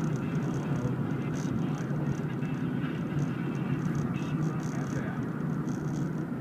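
Steady car interior noise while driving at low speed: engine hum and tyre rumble on the road, with a faint high hiss coming and going.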